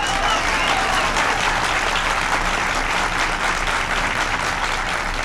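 Audience applauding steadily, with a shout or two in the first second.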